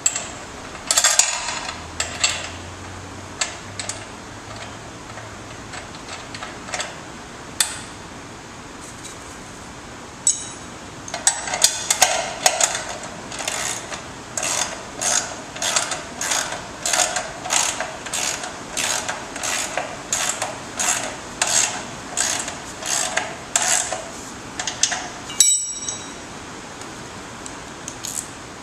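Socket ratchet clicking in even strokes, about two a second, as the nut on the TV mount's pivot bolt is run down. Before that come a few scattered metal clinks as the washer and nut are fitted.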